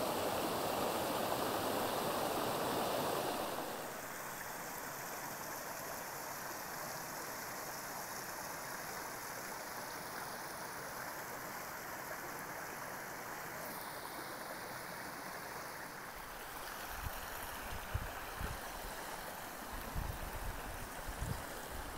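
Creek water rushing over rocks, louder for the first few seconds and then a softer, steady rush. A few low thuds come in near the end.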